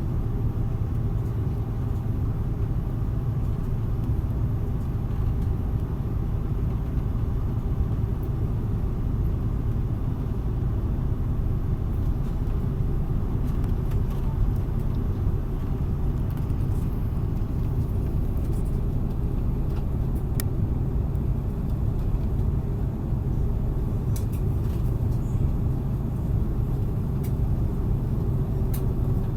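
Steady low rumble of cabin noise inside an Airbus A330-300 airliner on the ground after landing, with a few faint clicks in the last third.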